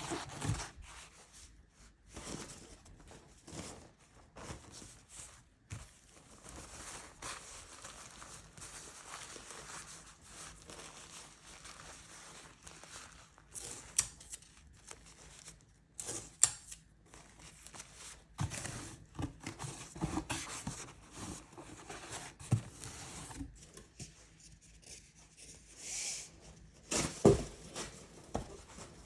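Hands handling packaging for a shipping order: irregular rustling, crinkling and tearing of paper or wrapping, with a few sharp knocks, the loudest near the end.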